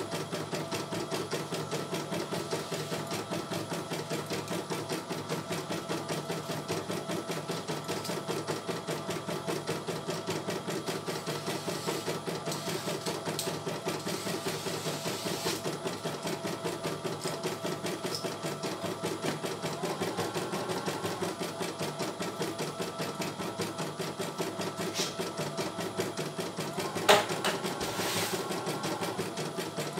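CNY E900 computerized embroidery machine stitching a design, its needle going in a fast, steady rhythm. A single sharp click stands out near the end.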